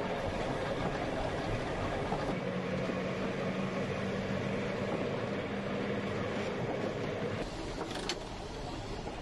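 Manx Electric Railway Car No. 1, an 1893 electric tramcar, running along the line with the steady rumble of wheels on rail and a steady hum from about two to seven seconds in. Near the end the sound eases and there is one short click as the motorman moves the controller handle.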